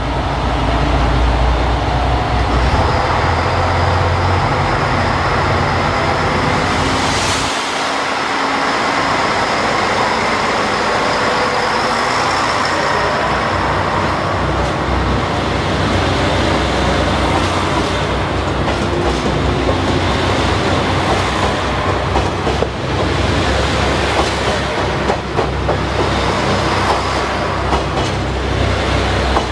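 JR Shikoku 2000-series diesel multiple-unit cars pulling away and passing close by, their diesel engines running under power. The deep rumble drops away sharply about a quarter of the way in. It leaves a steady rolling noise, with wheels clicking over the rail joints in the second half as the cars go by.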